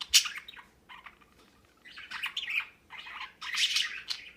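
Budgerigar chirping and chattering in short, high-pitched bursts: a sharp chirp at the start, then after a short pause two runs of rapid chirps.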